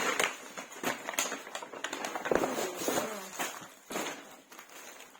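Plastic packaging crackling and rustling as items are handled and unwrapped, with a string of sharp clicks and taps. The sound fades away near the end.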